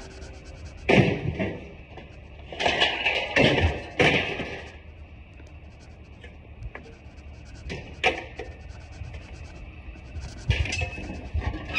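Scrap metal being thrown out of a pickup bed, clanging and banging as it lands: one crash about a second in, a cluster of crashes around three to four seconds in, and more near eight and eleven seconds.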